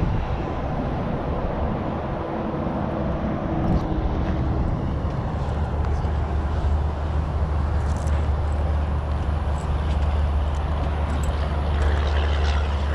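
Steady, unbroken rumble of distant road and interstate traffic.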